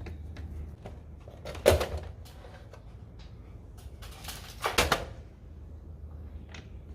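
Scattered clicks and knocks of parts and tools being handled, with a louder clack about two seconds in and a short rattling clatter near the five-second mark, over a low hum.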